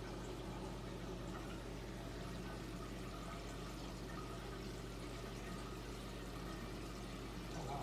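Reef aquarium water circulation: steady trickling and splashing of running water under a low, steady hum.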